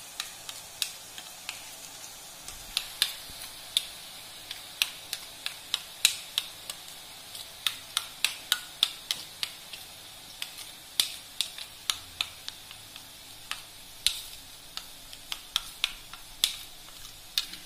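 Boondi batter being worked through a perforated steel ladle with a steel spoon, so drops fall into hot oil. Quick, irregular metallic clicks of the spoon on the ladle come over the steady sizzle of the frying oil.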